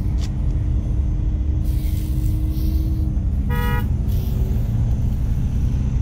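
Heavy wind buffeting the microphone over the steady hum of idling trucks. About three and a half seconds in, one short, high beep sounds.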